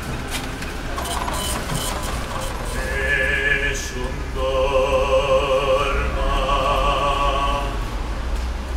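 A man's operatic singing voice comes in about three seconds in, holding long notes with a wide vibrato, in three phrases with short breaths between them.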